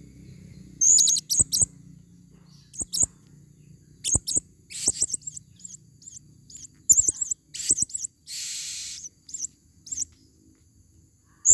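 Female blue-crowned hanging parrots (serindit) calling: short, high-pitched chirps in quick clusters of two to four, with one brief hissing buzz a little over eight seconds in.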